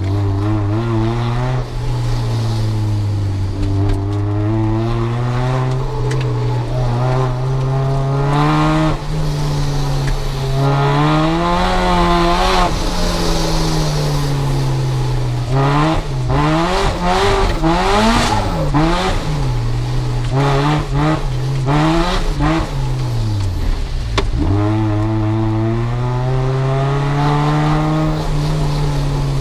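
Supercharged Mazda MX-5 BP-ZE 1.8-litre four-cylinder with a Rotrex C30-94 and a decat straight exhaust, revving up and dropping back again and again under hard driving in skids, with tyre squeal. In the middle the revs swing up and down quickly several times.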